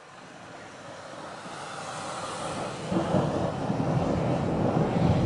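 Thunder rumbling and swelling steadily from faint to loud, with the heaviest rolls from about three seconds in.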